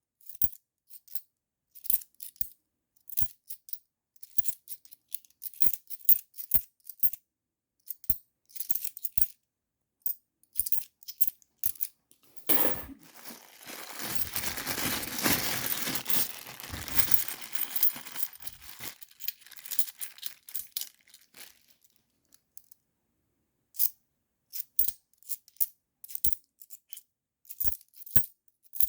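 50p coins clicking and clinking as they are picked through and set down one at a time. About halfway through there are several seconds of continuous rattling and rustling.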